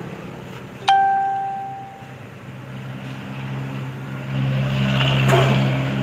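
A single bright ding about a second in, ringing out and fading over about a second, over a steady low hum that grows louder near the end.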